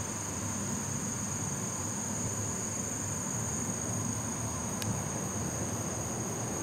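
Steady high-pitched chorus of insects, a continuous shrill tone, over a low even rumble, with a faint click about five seconds in.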